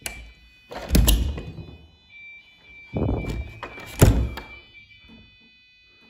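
Wooden front door thudding twice, about a second in and again about three seconds later, over the steady high beep of an Abacus 8 alarm panel sounding its exit tone while the system sets.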